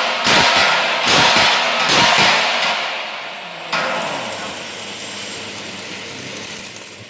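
Electric arc welding on a steel plate bracket: a loud, dense crackle that runs in stretches. It drops off about two and a half seconds in, then starts again sharply near four seconds and slowly fades.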